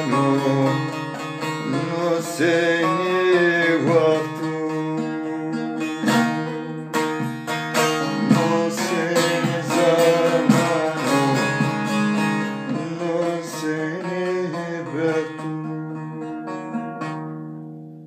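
Instrumental break in a folk song: a plucked string instrument picking a melody over steady held low notes, fading down near the end.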